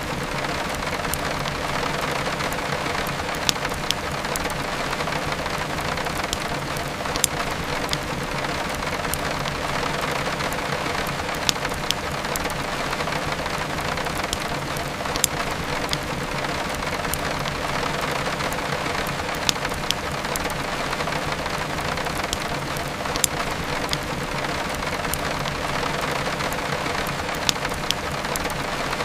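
Steady heavy rain, with the sharp, scattered crackles and pops of a wood fire burning in a fireplace.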